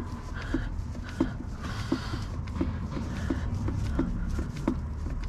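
Manual hand oil pump being worked in quick, regular strokes, giving short clicks and squeaky notes about three times a second as it draws gear oil and feeds it into a Land Rover Defender's transfer box.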